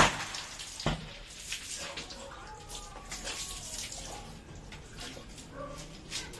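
Water poured from a plastic dipper into an empty glass aquarium, splashing on the bottom as dish-soap suds are rinsed out. There is a sharp hit at the start and a smaller one about a second in.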